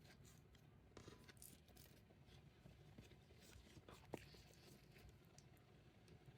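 Faint scratching and rustling of plastic shrink-wrap being slit with a box cutter, with scattered small clicks and one sharper click about four seconds in.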